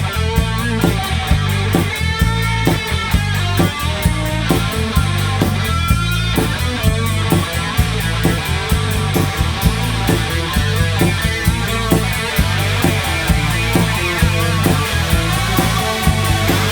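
Instrumental break of a rock song: electric guitar over bass and a steady drum beat.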